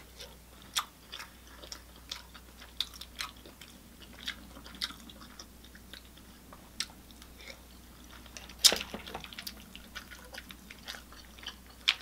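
A person chewing seafood boil close to the microphone: irregular sharp mouth clicks and crunches, one louder than the rest about nine seconds in.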